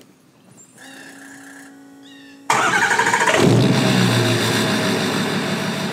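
Quiet sustained music tones, then about two and a half seconds in a sudden loud engine sound: an engine starting with its pitch rising, then running steadily and slowly fading.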